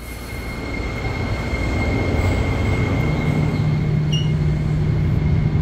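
Inside a moving commuter train car: the rumble of the wheels and running gear grows louder over the first couple of seconds. A thin, steady high whine runs through it, and a steady low hum joins about three seconds in.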